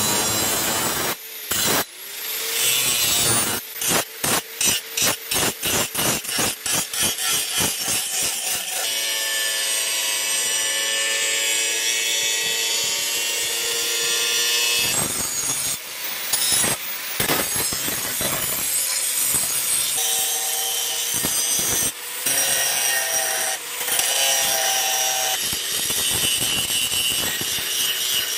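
Electric angle grinder with an abrasive disc grinding the steel of a cleaver blade and handle. Early on it makes a quick series of short touches, about two a second; then it grinds steadily with a whining motor pitch, broken by a few brief stops.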